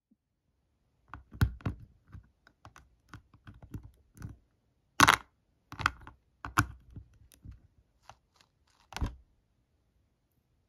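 Irregular small plastic clicks and taps of a Lego minifigure being handled on a Lego baseplate, its limbs moved as its loose joints are tested. There are about a dozen, the loudest cluster about five to six seconds in.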